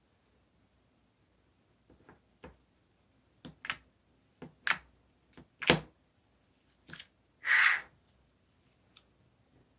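A string of irregular clicks and knocks, about a dozen spread over several seconds, with a short rustling swish about three-quarters of the way through.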